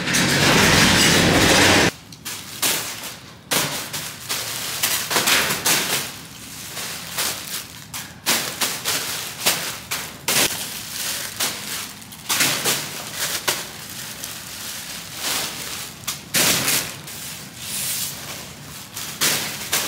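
Packages being handled and tossed into a bin: an irregular run of thuds, knocks and rustles, several a second. A loud burst of rushing noise fills the first two seconds.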